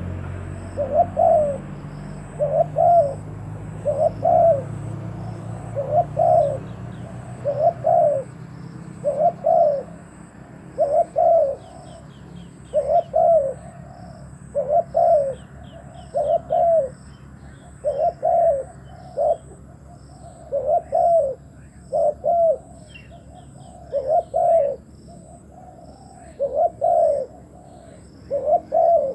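Spotted dove cooing over and over, a short two- or three-part coo about every two seconds, with faint high chirps from small birds in the background.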